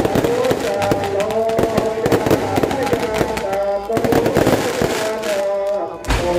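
Aerial fireworks going off in rapid, crackling bangs over music with a melody, the bangs thinning out near the end.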